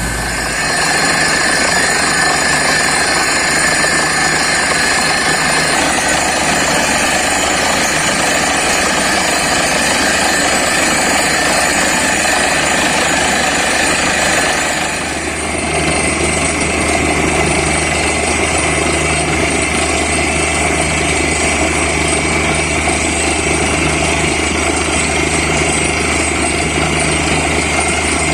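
Borewell drilling rig with its engine and air compressor running loudly and steadily; the sound shifts in character about halfway through.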